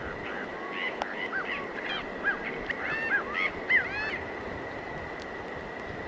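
A nightjar calling: a quick, irregular series of short arched notes that stops about four seconds in, over a steady background hiss with a faint steady high tone.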